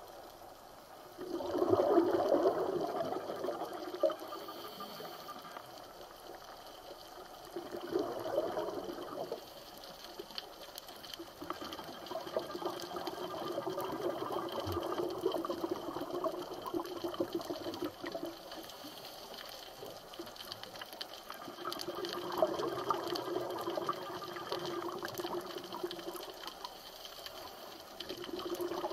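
Water bubbling and rushing in surges a few seconds long with quieter gaps between, the loudest surge about two seconds in.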